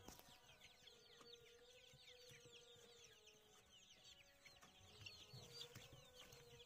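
A flock of young Rhode Island Red chicks peeping faintly: many short, falling peeps overlapping without a break.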